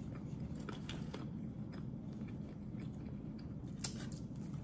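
A person chewing a mouthful of birria taco, with soft crunches and wet mouth clicks that cluster about a second in and again near the end, over a steady low hum.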